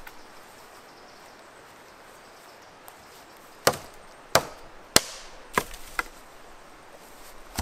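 Dead wooden branch being snapped by hand: five sharp cracks of breaking wood, about two every second, starting nearly four seconds in.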